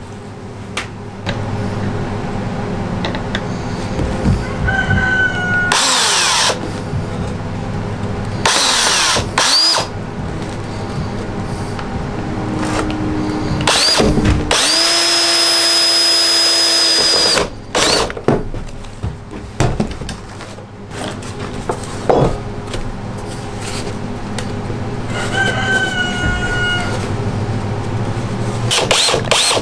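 Power drill running in bursts while driving screws into plywood bracing, with one longer steady run of a few seconds about halfway through and quick trigger pulses near the end.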